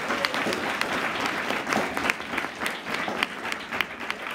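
Audience of schoolchildren applauding: many hands clapping together, with single sharp claps standing out from the steady clatter.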